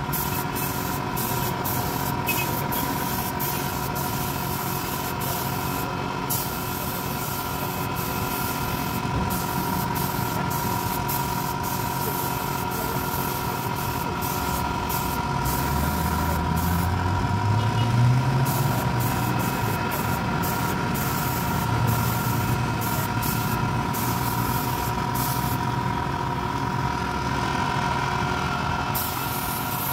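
Compressed-air spray gun hissing in repeated spurts as white paint is sprayed onto wooden chair frames, over a steady mechanical drone. A low engine-like hum rises in pitch around the middle.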